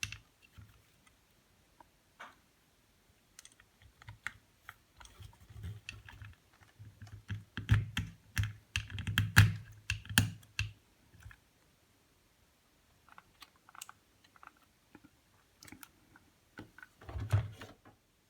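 Irregular clicks and taps of small hard parts being handled, thickest around the middle, with a few heavier knocks and a last brief flurry near the end.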